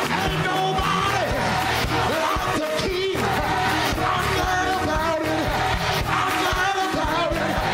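Live gospel choir music: a mass choir and a lead singer on a microphone singing with the band.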